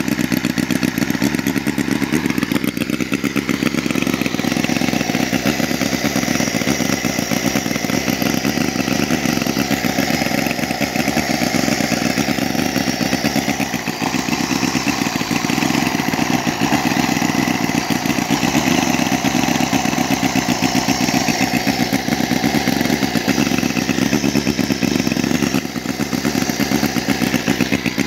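Elmer Wall 50cc four-cylinder four-stroke flathead model engine running steadily on its electronic ignition, with a rapid, even exhaust beat.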